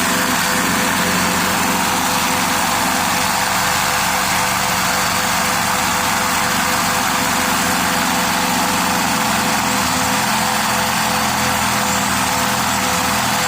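Household vacuum cleaner running steadily, its noise mostly covering the LEGO inline-two vacuum engine that its suction drives. The engine runs smoothly underneath with a fast, even rhythm.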